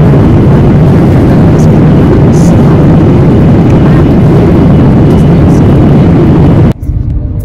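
Airliner cabin noise: a loud, steady rumble of jet engines and airflow, cutting off abruptly near the end as music comes in.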